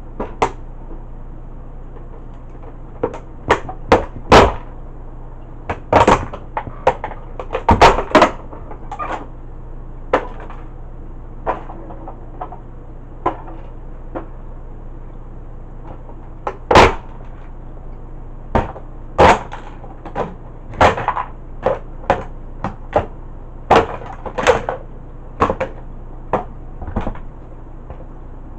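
A Tonka toy tow truck being stomped and crushed under cowboy boots: irregular sharp cracks, snaps and knocks of its body and boom giving way, some in quick clusters, over a steady low hum.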